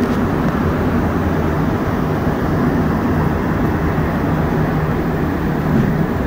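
Rubber-tyred Montreal Metro train running, a steady rumbling noise with a low steady hum beneath it that drops out briefly near the end.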